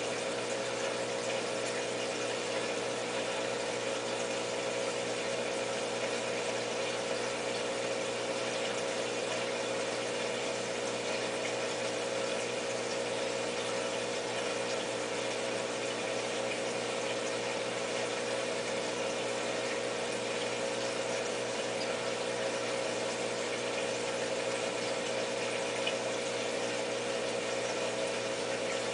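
Aquarium pump and water circulation running steadily: a constant hum with a hiss of moving water, unchanging throughout.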